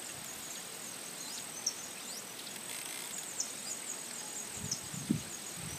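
Quiet countryside ambience: a steady high-pitched insect trill with short, high bird chirps scattered through. A couple of soft low knocks come near the end.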